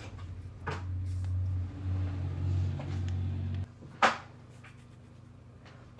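Handling of plastic building-toy pieces on a table: a low steady hum for about three seconds, then one sharp knock as a piece is set down.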